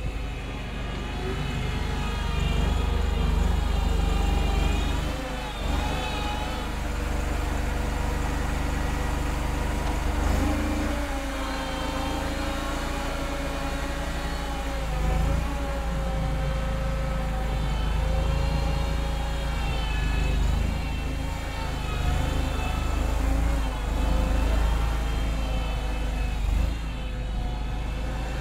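Engine of a homemade wheel loader running under load while it pushes and lifts snow, its speed rising and falling as it works, with a wavering whine above the low engine note.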